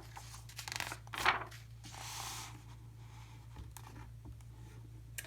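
Paper of a picture book's page being turned: a brief swish about a second in, then a soft brushing of paper. A steady low hum lies underneath.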